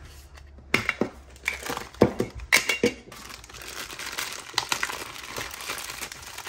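A few sharp clicks and scrapes as the metal lid of a Funko Soda can is pulled open and the bagged figure taken out, then steady crinkling of a black plastic bag being squeezed and unwrapped by hand from about three seconds in.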